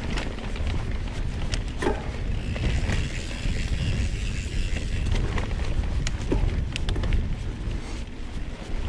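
Mountain bike being ridden on a sandy dirt trail: wind buffeting the camera's microphone as a steady low rumble, with frequent sharp rattles and knocks from the bike going over bumps and a hiss from the tyres on the dirt.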